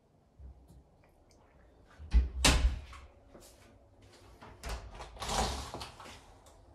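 Doors being handled: a cupboard door shut with a quick cluster of knocks and thuds about two seconds in, then a door to the outside opened with a longer, noisier rattle about five seconds in.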